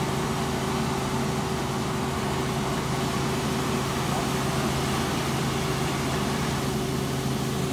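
Light helicopter in cruise heard from inside the cabin: a steady engine and rotor drone with a constant low hum and a higher constant tone over an even rushing noise.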